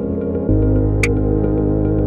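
Background synthesizer music: sustained chords that change about half a second in, with a sharp tick about once a second.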